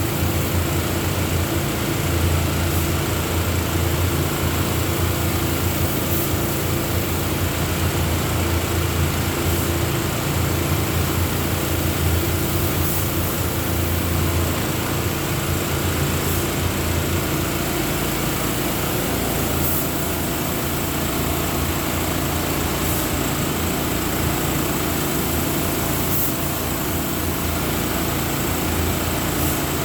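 Paint-spraying equipment running steadily: a motor with a constant low hum and a hiss above it.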